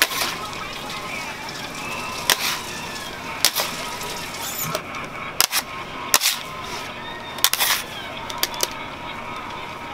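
Metal bench scraper clacking and scraping on a marble candy slab as a mass of hot boiled sugar is folded over: about eight sharp clacks at irregular intervals of one to two seconds.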